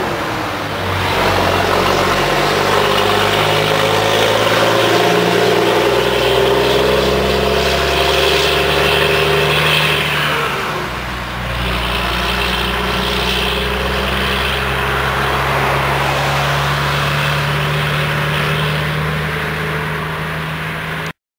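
Scania 4-series V8 tractor unit with a loaded trailer pulling away and accelerating up through the gears. The engine note climbs and drops back at each gear change, dips briefly about halfway through, then pulls hard again as the truck drives on down the road.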